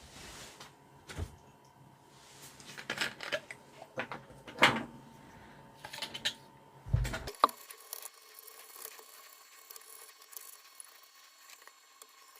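Intermittent short scraping strokes and small clicks of hand cleaning on the opened radio alarm clock, scattered over the first seven seconds, then fainter small rattles and ticks.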